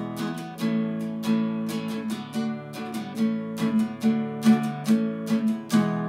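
Background music: an acoustic guitar strummed over and over in a steady rhythm.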